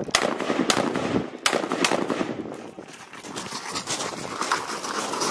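A quick string of about five rifle shots, sharp cracks in the first two seconds, followed by quieter, rapid crunching and clatter as the shooter moves across the gravel.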